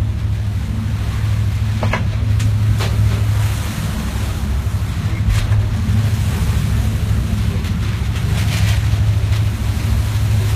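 Offshore patrol vessel under way in rough sea: a steady low drone of the ship's engines under the rush of waves and wind buffeting the microphone, with a few brief splashes.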